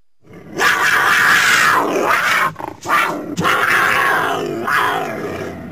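Cougar (mountain lion) vocalizing: two long, harsh, raspy calls, the first starting about half a second in and the second after a short break, fading away near the end.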